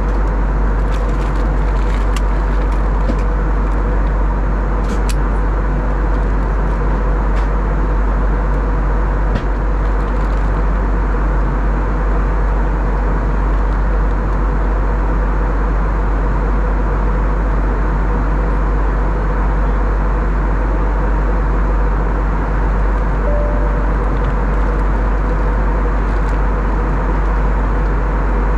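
Steady cabin noise of an Airbus A321neo airliner in flight: a constant rumble of engines and airflow with a faint steady hum, and a few light clicks in the first ten seconds.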